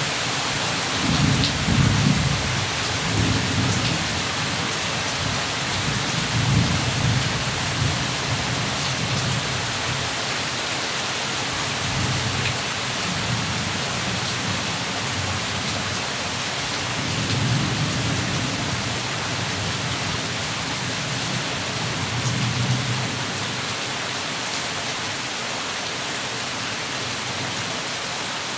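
Heavy rain falling steadily, with low rolls of thunder rumbling under it four times. The strongest roll comes about one to four seconds in, and the others come around seven, eighteen and twenty-three seconds in.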